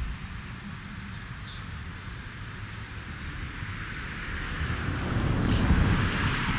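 Outdoor street ambience with a vehicle going by, growing louder to a peak about five to six seconds in and then easing off.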